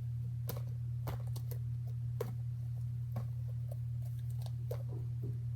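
Scattered light clicks and taps of fidget toys being handled and set down, over a steady low hum.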